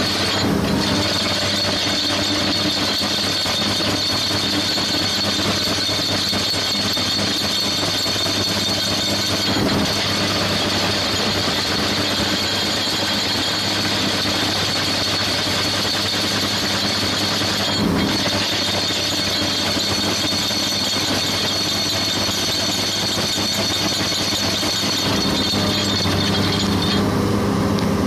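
Excavator running with an ALLU DH 3-12 screening crusher bucket's hydraulically driven TS32 drums turning as they crush and screen industrial waste. A steady high-pitched whine sits over the engine, with a couple of brief knocks along the way.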